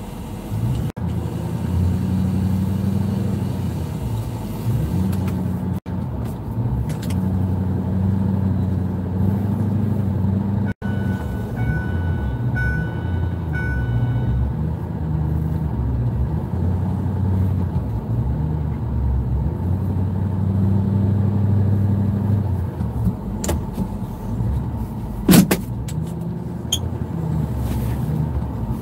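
Pickup truck engine running, heard from inside the cab, its note stepping up and down as the truck is driven. Three short high beeps come about 12 seconds in, and a brief sharp sound, the loudest thing, about 25 seconds in.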